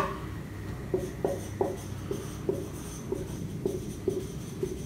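Felt-tip marker writing on a whiteboard: an irregular run of short strokes, about two or three a second, as letters are written.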